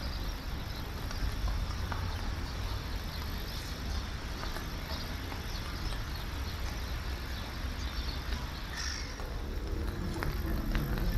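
Outdoor ambience at a lake's edge: a steady low rumble under a broad hiss. After a cut about nine seconds in, a low, even engine hum joins it, from a small passenger boat nearing the landing stage.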